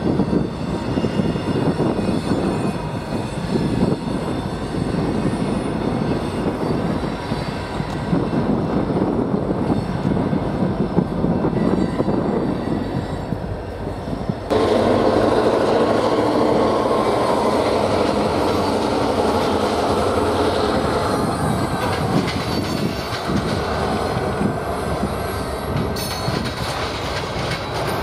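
Diesel freight train passing close by, locomotives running and covered hopper cars rumbling and clattering over the rails. About halfway through the sound cuts suddenly to another diesel freight train pulling away, louder and steadier.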